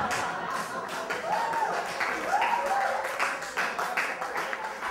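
Theatre audience laughing and clapping, with many sharp scattered claps and a couple of short high voice sounds from the crowd.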